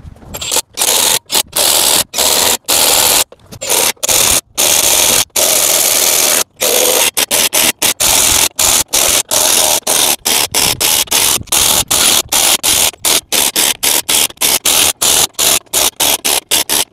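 Cordless impact driver with a socket adapter running lug nuts onto a semi truck's front wheel studs, loud and in many separate bursts. The bursts get shorter and come several a second in the second half as the nuts seat.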